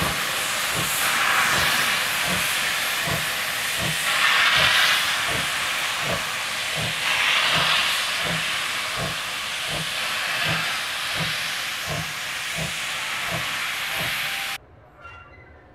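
Steam locomotive pulling away with its cylinder drain cocks open: a loud, steady hiss of steam over exhaust chuffs at about two a second, quickening a little. The sound cuts off suddenly near the end, leaving faint music.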